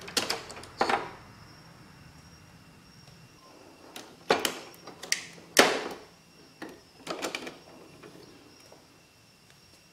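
Sharp plastic clicks and knocks from pulling the ink cartridges out of a Canon PIXUS iX6830 inkjet printer's carriage and lifting the print head's lock lever: two clicks at the start, then a cluster of several from about four seconds in, the loudest near the middle.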